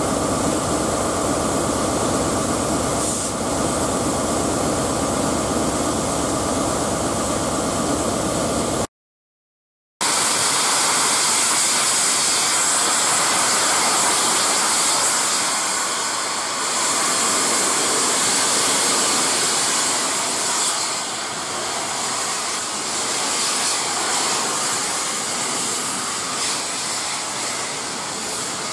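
Steady mechanical running with several held tones, then, after a short cut, a loud, steady hiss of escaping steam from the steam locomotive 60163 Tornado, easing a little later on.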